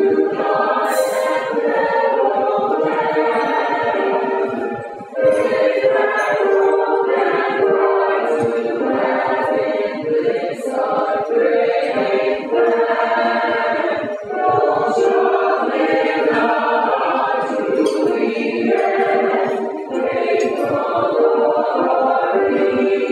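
Mixed choir of men and women singing an alma mater medley in parts, with held notes and short breaks between phrases about five seconds in and again near fourteen seconds.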